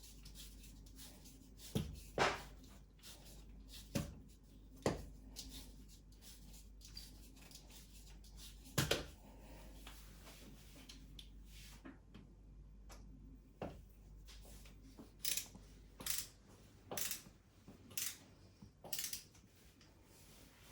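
Light clicks and knocks from hardware being handled during the fitting of a metal wall rail: a few scattered ones, then a run of about six, roughly one a second, near the end.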